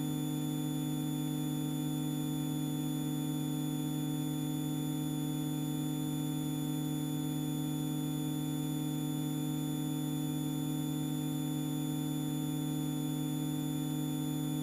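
Extra EA-200's four-cylinder Lycoming engine and propeller droning at a constant power setting, heard in the cockpit as a steady hum with no change in pitch.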